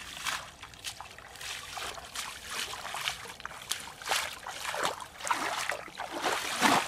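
Bare feet wading through the shallow water of a flooded rice paddy: a run of irregular splashing, sloshing steps, the loudest one near the end.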